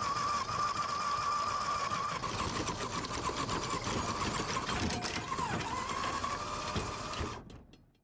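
Electric anchor windlass whining steadily as it hauls in the anchor chain, with a fast rattle of chain links running in. The whine dips and recovers once about five seconds in, then fades out near the end.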